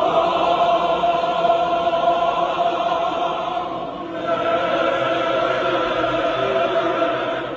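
Mixed choir of men's and women's voices singing long, held chords. The first chord eases off about four seconds in and a second held chord follows, cutting off near the end.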